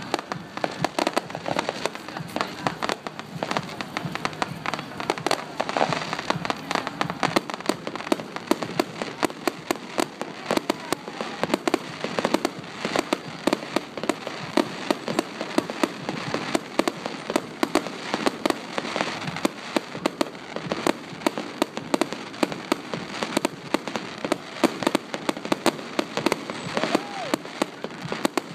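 Fireworks display: a dense, continuous rattle of many rapid bangs and crackles, with no let-up.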